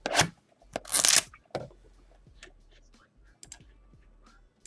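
Packaging of a sealed trading-card box being torn open: two loud rips about a second apart, then light clicks and rustling as it is handled.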